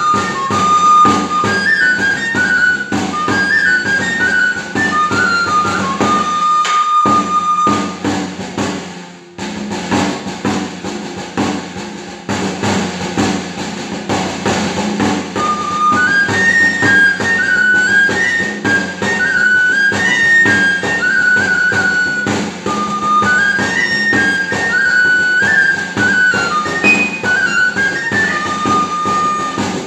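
Salamancan three-hole pipe (gaita charra) and tamboril drum playing a charrada dance tune: a shrill stepping pipe melody over steady drum strokes. The pipe holds one long note, falls silent for several seconds while the drum carries on, and comes back in about halfway through.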